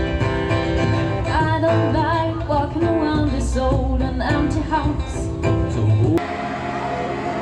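A woman singing to a strummed acoustic guitar, played live through a PA. About six seconds in, the music cuts abruptly to a different song, with long held notes from a group of male singers.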